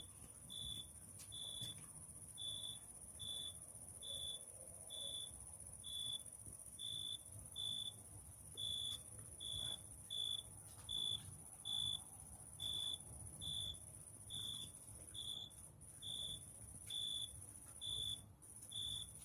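Cricket chirping at a steady, even pace, about one and a half short high chirps a second, over a continuous thin, very high insect trill and a faint low rumble.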